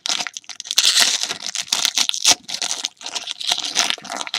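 Wrapper of the box-topper pack from a 2016-17 Court Kings basketball card box being torn open and crinkled by hand: an irregular run of crackles, with a sharp one a little past halfway.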